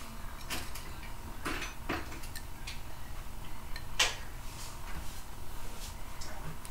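Scattered light metal clicks and taps as a bone screw is fitted into a hole in a removed steel orthopaedic leg plate; the sharpest click comes about four seconds in.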